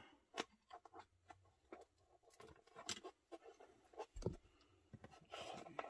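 Faint scattered clicks and rustles of plastic packaging being handled inside a tin box, with a longer rustle near the end.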